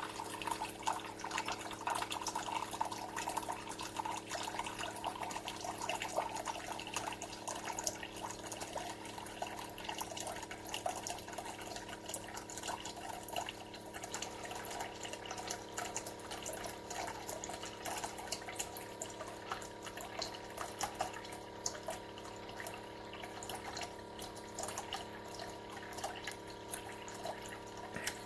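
Keurig K-Cafe single-serve coffee maker pouring water in a continuous stream into a cup over a steady machine hum. It started dispensing on its own as soon as it was switched on and keeps going past the full cup size: a fault that drains the whole water tank.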